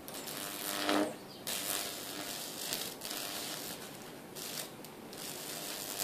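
High-voltage arcing from a microwave oven transformer's roughly 2000-volt output against a microwave display circuit board, crackling and buzzing in several bursts.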